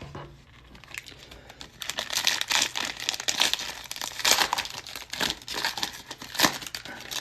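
Cellophane wrapper of a trading card pack being torn open and crinkled, starting about two seconds in as a dense run of sharp crackles.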